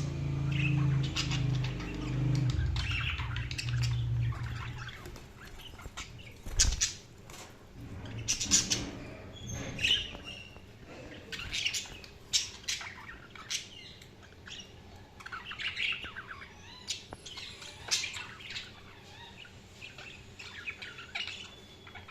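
Budgerigars chirping and squawking in short, sharp calls and bursts of chatter. A low steady hum sits underneath for the first five seconds or so.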